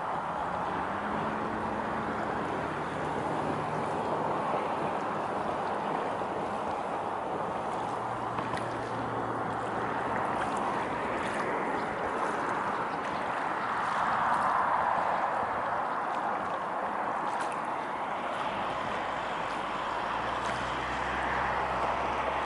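Small waves lapping steadily against a lakeshore, a continuous wash of water mixed with wind.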